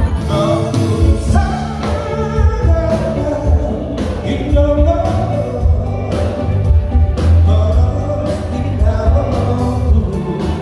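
Singing over amplified music with a steady beat and heavy bass.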